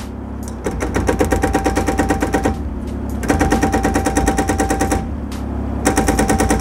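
Hydraulic breaker on a 1.5-tonne Kubota KX19-4 mini digger hammering in rapid, evenly spaced blows, in three bursts with short pauses between them. The digger's engine runs underneath.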